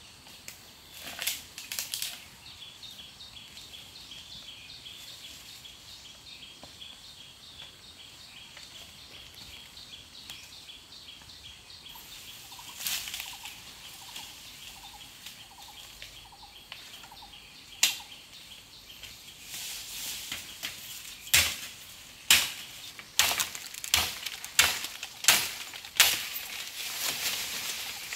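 Dry bamboo leaf litter and twigs crackling and snapping as a person moves through a bamboo thicket. Scattered cracks at first, then a quick irregular run of sharp snaps in the last third.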